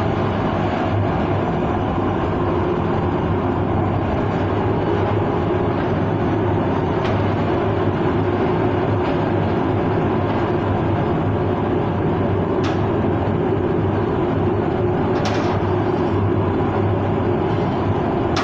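Brucker pet cremation furnace running with its burner lit, a steady loud roar that does not change, with a few faint clicks over it.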